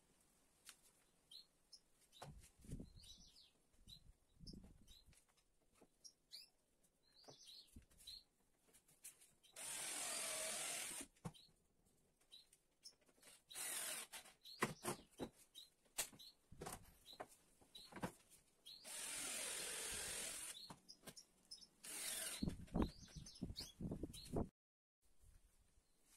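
Cordless drill/driver running in two main runs of about a second and a half each, about 10 and 19 seconds in, with shorter bursts near 14 and 22 seconds: driving screws to join the corners of a pine frame. Between the runs there are short knocks of wood and tool being handled, and small birds chirp in the first several seconds.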